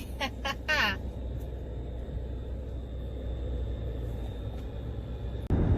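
Road and engine noise heard inside a moving car: a steady low rumble that gets louder about five and a half seconds in.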